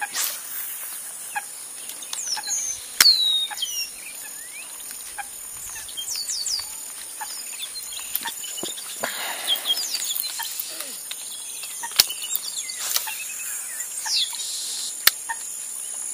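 Outdoor ambience of birds calling in short, falling chirps over a steady, high insect drone, with a few sharp clicks scattered through.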